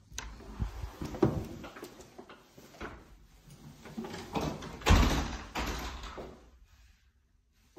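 The lever handle and latch of a wooden door click as the door is opened, followed by knocks and handling noise. The loudest thump comes about five seconds in.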